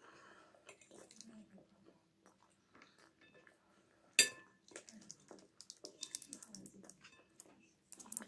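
A fork clinking and scraping against a bowl while someone eats and chews, with scattered small clicks and one sharp clink about four seconds in, the loudest sound.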